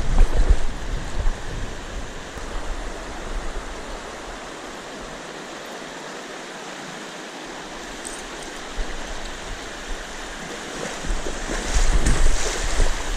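Shallow river rapids rushing steadily over rocks. Low rumbling buffets on the microphone are louder at the start and again near the end.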